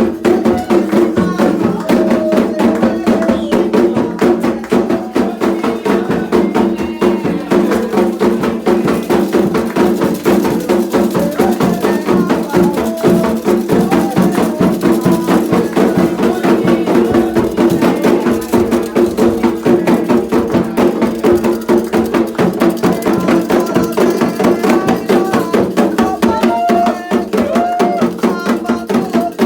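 Music for a Candomblé ceremony: drums and percussion play a fast, steady rhythm while voices sing.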